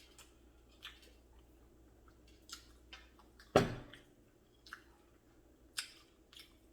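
Close-up crunching and chewing of crispy fried chicken: scattered small crackles, with one loud crunchy bite about three and a half seconds in.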